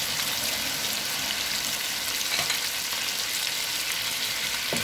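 Chicken sizzling steadily in hot oil in a metal karahi, its juices cooked dry, as ginger-garlic paste is added. A wooden spoon stirs through it, knocking against the pan a couple of times.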